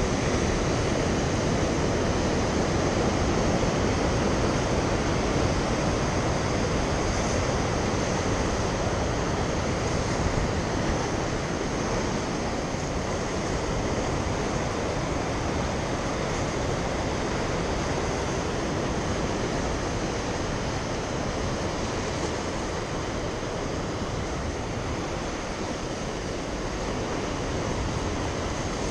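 Rough ocean surf washing steadily against a rocky shore and concrete pier, an even rushing noise.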